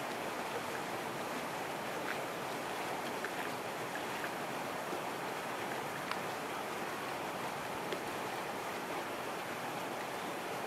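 Steady outdoor ambience at a lakeside: an even rushing noise with a few faint clicks.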